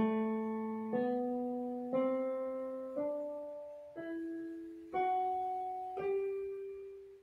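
Piano playing the G major scale upward, one note about every second: A, B, C, D, E, F sharp and the top G, each struck and left to fade. The top G rings on and dies away near the end.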